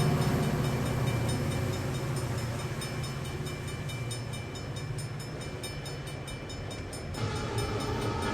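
Train running, a steady low rumble that slowly fades, then swells again about seven seconds in.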